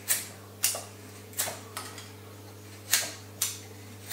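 Nessmuk knife slicing shavings off a willow spoon blank: six quick, sharp cuts at an uneven pace over a steady low hum.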